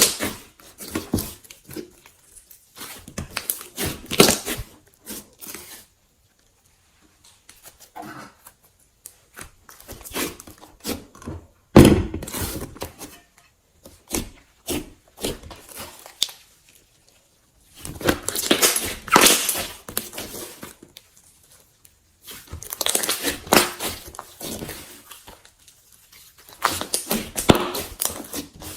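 Slime being squished and stretched by hand, giving clusters of sticky crackling pops every few seconds with short pauses between, and one louder knock about twelve seconds in.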